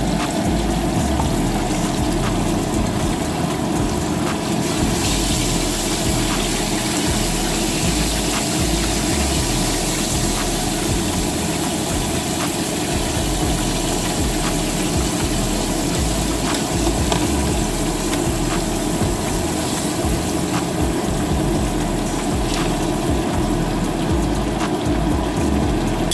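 Breaded chicken strips sizzling steadily in hot frying oil in a shallow pan, with scattered small pops over a low, steady drone.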